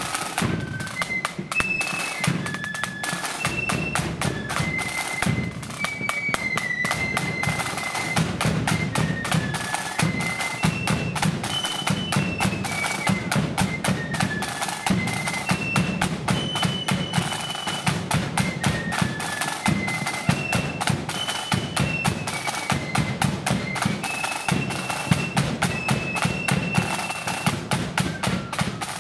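Loyalist marching flute band playing a tune: flutes carry a high melody in unison over rapid, continuous side drum strokes and a bass drum.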